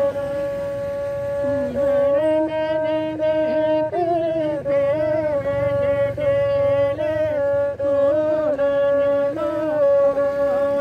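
A homemade bowed string instrument holds a steady note throughout. From about two seconds in until near the end, a man's voice sings a wavering, bending melody over it, a folk song.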